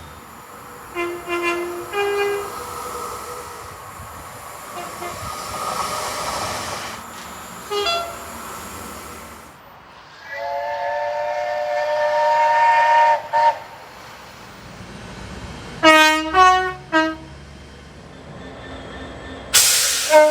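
Train horn sounding: a few short blasts near the start, one long multi-note chord lasting about three seconds in the middle, then a quick run of short blasts, with passing train noise between them. A short loud hiss comes near the end.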